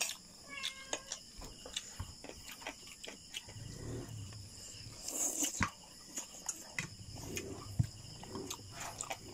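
Close-up eating sounds: chewing, mouth and lip smacking on sauced fried chicken and rice, with small irregular clicks of a fork against a plate.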